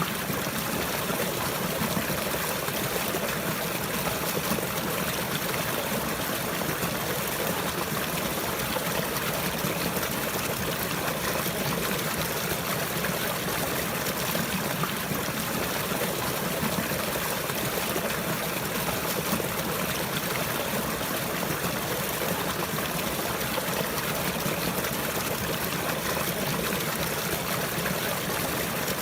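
Running water, a stream trickling and flowing in a steady, unbroken rush.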